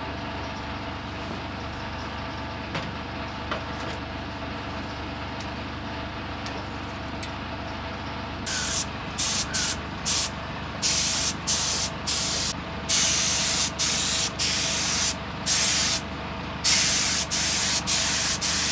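Paint spray gun hissing in about a dozen short bursts, trigger pulled on and off, starting about halfway through. A steady machine hum runs underneath.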